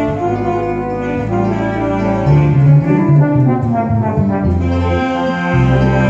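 Live wind sextet of trombone, tuba, three saxophones and clarinet playing a slow melody over sustained chords, the tuba holding long bass notes that change twice.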